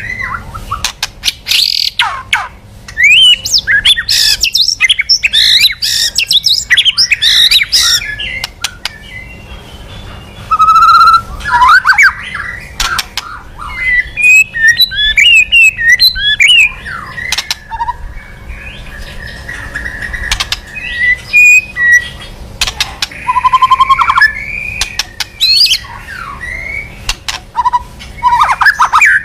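White-rumped shama (murai batu) singing a loud, varied song: quick phrases of whistled up-and-down sweeps, trills and harsh notes, broken by sharp clicking notes and short pauses.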